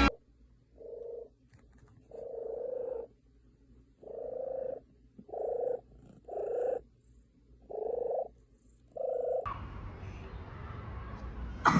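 A cat purring in seven rhythmic pulses, roughly one a second. About three quarters of the way in, it gives way to a steady background hiss.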